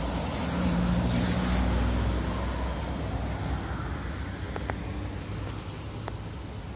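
Road traffic at a city intersection: vehicle engines running and tyre noise. One vehicle's engine hum is louder over the first two seconds, then fades into the general traffic.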